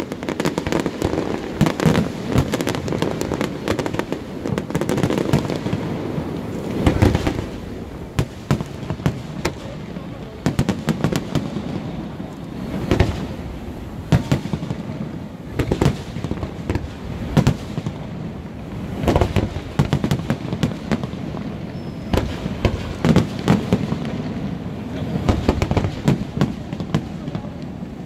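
Aerial firework shells bursting one after another in a continuous barrage: a dense, irregular run of bangs with crackling between them.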